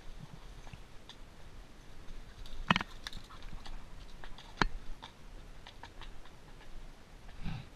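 Horse walking a rocky, brushy trail: irregular clicks and knocks of hooves on stones and brush scraping past, with two sharper knocks about three and four and a half seconds in.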